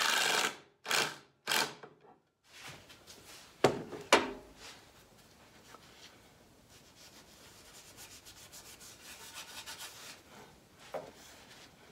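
A cordless drill driving a screw stops about half a second in, followed by two short bursts of it and then two sharp knocks. After that comes a faint, steady rubbing as a hand works sawdust over the table saw top to soak up squeezed-out wood glue.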